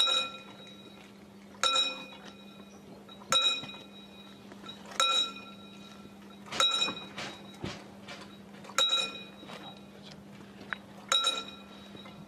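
Level-crossing warning bell striking about every one and a half to two seconds, seven strikes in all, each a bright metallic ding that rings briefly, over a steady low hum while the crossing barrier lowers.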